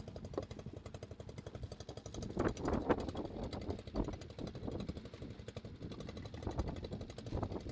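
Small engine running steadily with a rapid, even chugging beat, with a louder rush about two and a half seconds in.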